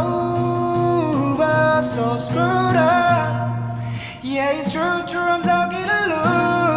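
A male singer sings a slow song with held, gliding notes over acoustic guitar accompaniment, with a short break in the voice about four seconds in.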